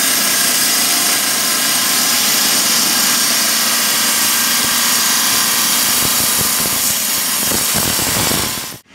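Wet gem-cutting saw slicing hard black bacan stone into small squares: a steady high grinding hiss over the motor's hum. The sound cuts off abruptly near the end.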